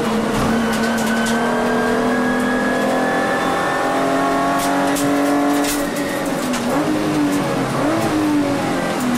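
Volkswagen Vento VR6's six-cylinder engine heard from inside the race car's cabin, pulling hard with its pitch climbing steadily for about six seconds. Then the revs drop and rise unevenly as it comes off the throttle for the next corner, with a few sharp clicks just before.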